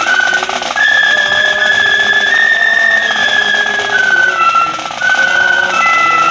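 A flute band playing a slow melody, the flutes holding long notes that step up and down.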